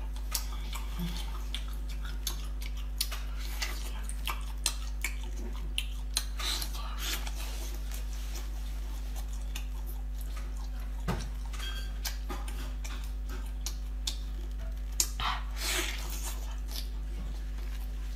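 Close-up mouth sounds of a person eating spicy sauce-covered seafood: wet chewing and lip smacks, with scattered small clicks and a few louder ones. A steady low hum runs underneath.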